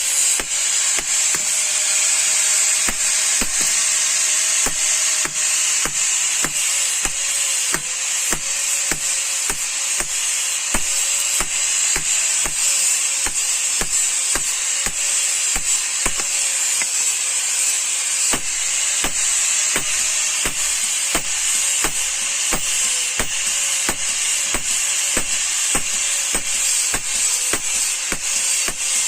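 Steady mechanical hiss with a faint wavering hum underneath and light regular ticks, about two a second, in a blacksmith's workshop.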